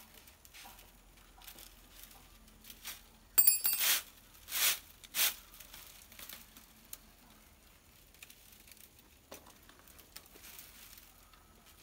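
Twine being pulled and wrapped tight around a bundle of coconut-leaf midribs (ekel) to bind a broom: light rustling and clicking of the stiff sticks, with three loud rasping pulls of the twine a few seconds in.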